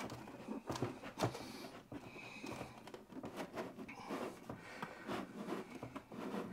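Plastic lithium battery case being handled and opened by hand: faint scrapes, rustles and light clicks as the top is lifted off the case, with a few sharper ticks in the first second or so.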